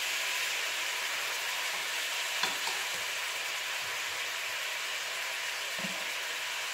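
Beef slices frying in hot lard in a pan: a steady sizzle, with a single sharp click of a utensil about two and a half seconds in.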